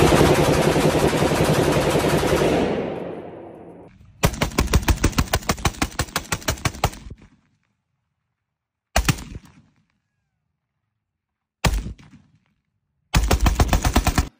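AK-pattern rifles firing on full auto. First comes a sustained burst heavily smeared by indoor-range echo that dies away over a couple of seconds. Then come outdoor bursts at about ten shots a second: one of about three seconds, two very short ones, and a final burst of about a second.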